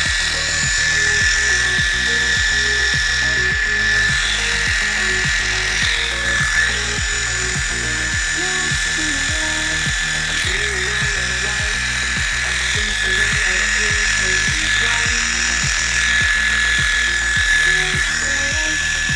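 Background music with a steady beat over the steady whine of a Heiniger electric animal clipper shaving a cat's fur.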